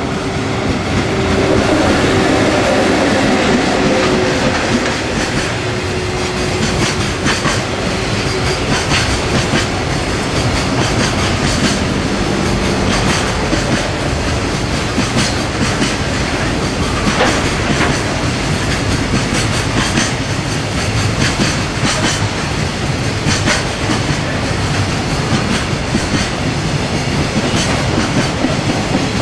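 An EF81 electric locomotive passes with a steady hum, loudest in the first few seconds. A long train of container wagons follows, rolling past with wheels clicking over the rail joints.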